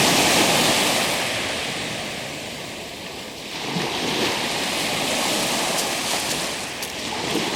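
Black Sea waves breaking on the shore: a wave surges and washes in at the start and fades over about three seconds, then a second wave swells in about three and a half seconds in.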